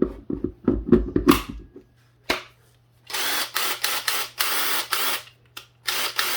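Handling knocks and a sharp click, then a cordless screw gun running in a string of short bursts as it drives screws in.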